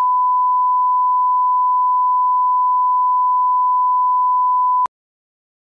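A steady 1 kHz reference test tone, the 'bars and tone' signal that goes with SMPTE colour bars, held at one unchanging pitch and cutting off suddenly near the end.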